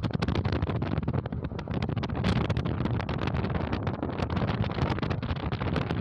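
Wind buffeting the microphone of a moving vehicle over steady low road and vehicle noise, broken by many short crackling pops.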